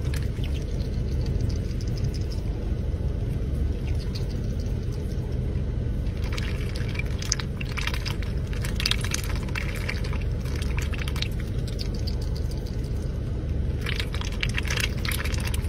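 A domestic duck dabbling its bill in a plastic cup of iced drink, with bursts of clicking ice and splashing from about six seconds in and again near the end. A steady low rumble from the car runs underneath.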